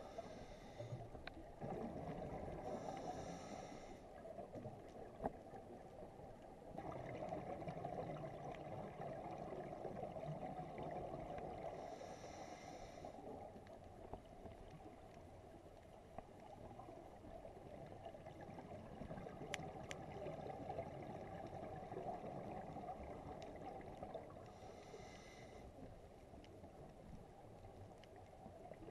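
Muffled underwater sound of a scuba dive heard through a camera housing: a steady low rush of water and exhaled bubbles, with three short hisses of the diver's regulator breathing, about ten seconds apart.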